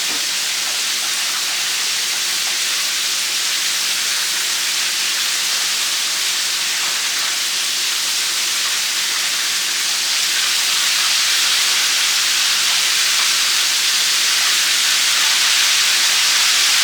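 Breaded chicken drumsticks frying in hot oil, a steady sizzle that grows a little louder about ten seconds in.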